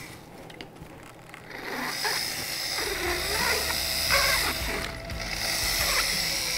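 Motorized equine dental burr grinding down a horse's lower canine tooth: a steady mechanical whir that starts about two seconds in.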